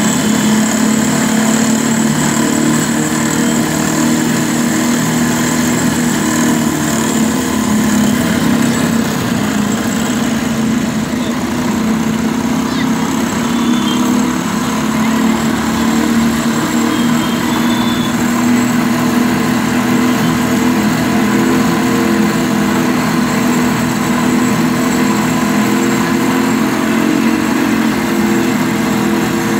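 Cotton candy machine running, its motor spinning the head at a steady speed with a loud, even mechanical drone.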